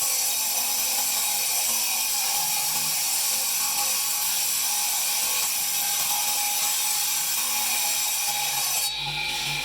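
High-speed power tool grinding marble: a steady high whine over a hiss, holding an even pitch. Near the end it gives way to background music.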